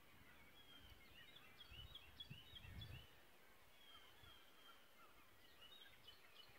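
Faint birdsong: many short, high chirps and trills from small birds over a quiet outdoor hush, with a soft low rumble for about a second near the middle.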